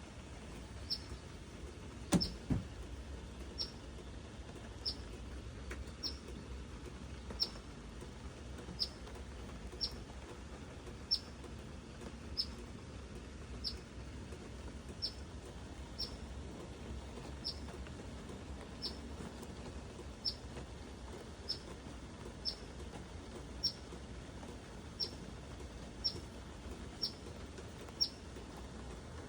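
Eastern phoebe giving one short, sharp, high chip about every second and a bit, steadily and evenly spaced. Two louder knocks come about two seconds in.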